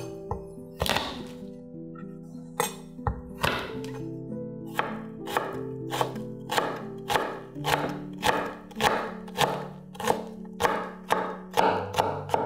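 A kitchen knife chopping on a wooden cutting board: a few scattered knocks, then a regular run of sharp chops about twice a second from about three seconds in, over background music with sustained notes.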